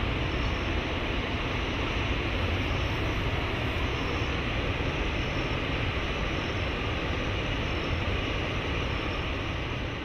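Steady rush of a waterfall: water pouring down a rock face into the pool below.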